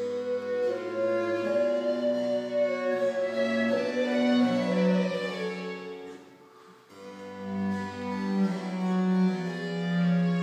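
Baroque chamber music played live on violin, cello, recorder and harpsichord, with long held string notes. The music falls almost silent for about a second a little past halfway, then the ensemble plays on.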